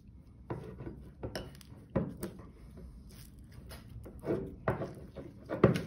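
Metal spoon clinking and scraping against a small glass bowl as it stirs thick slime mixed with iron filings, in irregular strokes, with louder clinks about two seconds in and near the end.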